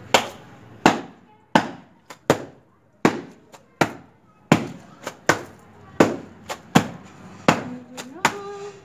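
Wooden washing bat beating a wet towel against a stone washing slab: a sharp slap roughly every three-quarters of a second, about a dozen strikes in a steady rhythm.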